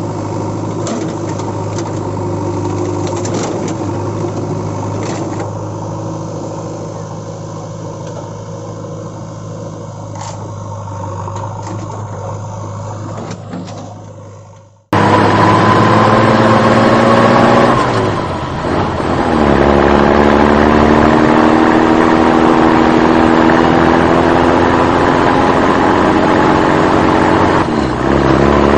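A vehicle engine running steadily, fading out about halfway through. After a sudden cut, a louder engine runs; a few seconds later its pitch dips and then rises again as it is eased off and revved back up.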